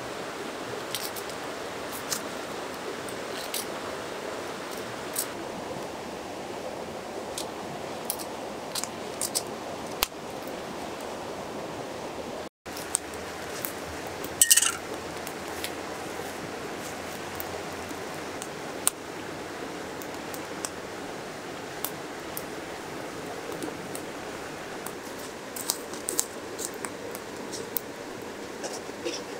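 A river flows steadily under scattered small metallic clicks as a wire grill grate is set over a campfire. About halfway through, a metal cooking pot clanks down onto the grill with a short ringing strike whose pitch falls away.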